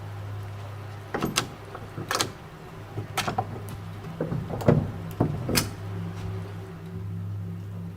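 A door handle and latch being worked: a run of sharp clicks and knocks lasting about five seconds, over a steady low hum.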